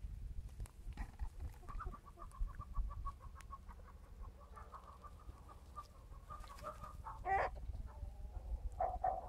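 Chickens clucking: a long run of quick, soft, evenly spaced clucks, then a single louder call about seven seconds in and a few more calls near the end.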